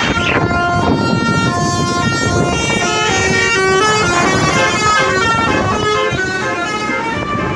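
Basuri telolet bus horn playing a melody of short held notes, stepping up and down in pitch and quickening about three seconds in, over a low rumble.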